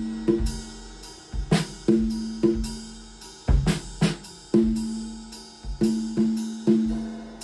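Improvised drum-kit track: loose, uneven hits on the drums, some of them ringing on a low pitch, with cymbals and hi-hat washing over them.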